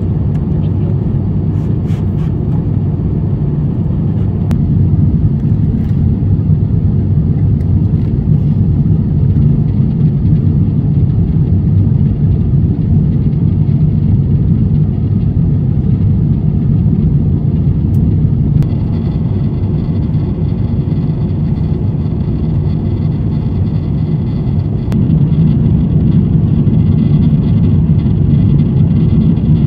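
Steady low rumble inside the cabin of an Airbus A350-900 airliner: engine and airflow noise, heard from a window seat. A faint high whine joins about two-thirds of the way through.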